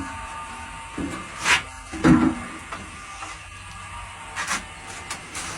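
Scattered short knocks and scrapes, a handful over several seconds, the strongest about two seconds in, over a low steady background.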